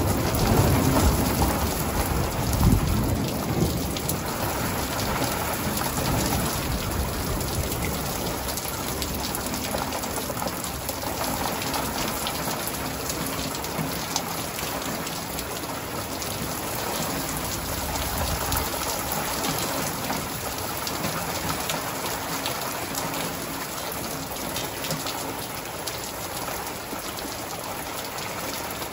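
Steady rain falling in a thunderstorm, with a rumble of thunder in the first few seconds that peaks twice and dies away, and a fainter low rumble about two-thirds of the way through.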